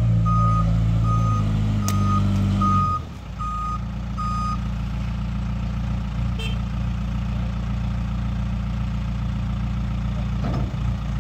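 Self-loading concrete mixer's reversing alarm beeping about twice a second over its diesel engine running. The engine drops to a lower, steady idle about three seconds in, and the beeping stops a little after.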